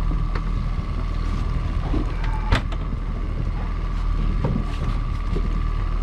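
Small fishing boat's motor running steadily at trolling speed: a constant low drone with a thin steady whine. Light scattered clicks and knocks run over it, with one sharp knock about two and a half seconds in.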